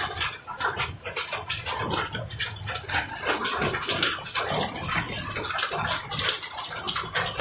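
Hail and rain coming down, hailstones striking the ground, stones and leaves in a dense patter of small sharp ticks over a steady hiss.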